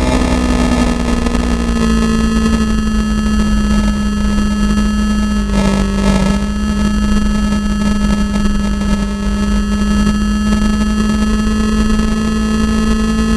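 Racing vehicle's engine heard onboard at high revs, holding a nearly steady pitch and rising again near the end, under heavy wind rumble on the microphone.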